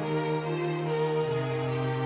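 String trio of violin, viola and cello played back from a notation program, with held notes that change every half second or so. Underneath, a sustained cello line steps down to a lower note a little past halfway through.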